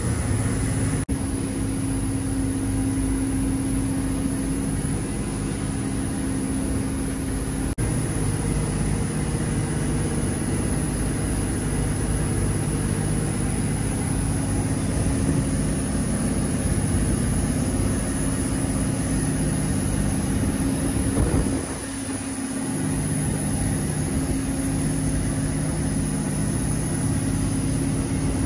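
Fishing trawler's engine running with a steady, even drone, its low hum dipping briefly about three-quarters of the way through.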